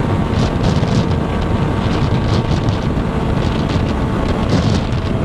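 Motorcycle engine accelerating after a downshift, heard under heavy, steady wind noise on the microphone.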